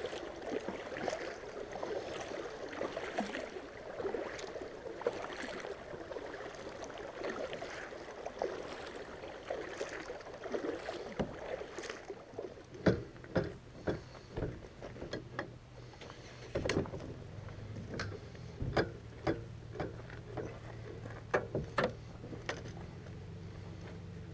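Water sloshing and lapping against a kayak hull. About halfway through, this gives way to a series of sharp knocks and clatter over a steady low hum.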